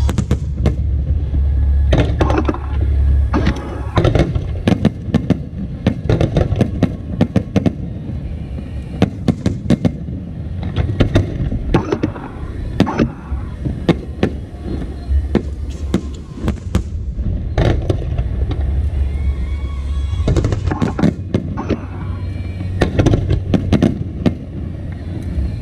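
Aerial fireworks bursting in quick succession: many sharp bangs and crackles, with a low rumble underneath.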